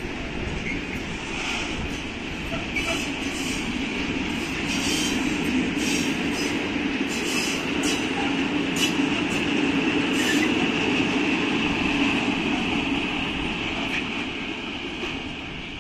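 Long freight train of open coal wagons rolling past: a steady rumble of wheels on rail with a high ringing tone over it and scattered sharp clicks, fading near the end.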